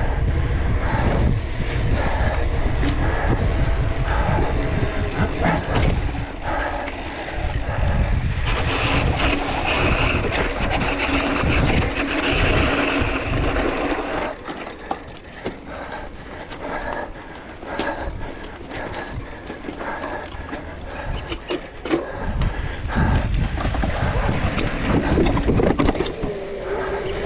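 Mountain bike ridden fast downhill over rough ground, heard from the rider's GoPro: wind buffeting the microphone with the bike rattling and knocking. The wind rumble eases about halfway, leaving sharper rattles and knocks.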